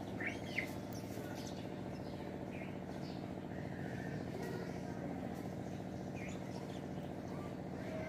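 Budgerigars chirping in short, scattered calls over a steady low hum.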